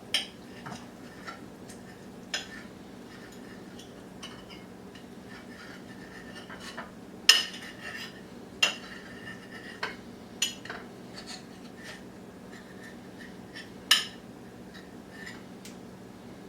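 Cutlery clinking and scraping against a plate in scattered sharp clicks, the loudest about seven seconds in and again near fourteen seconds, over a faint steady low hum.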